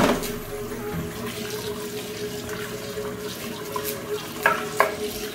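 Kitchen tap running into a sink while raw chicken livers are rinsed. There is a sharp knock at the start and two short clatters near the end.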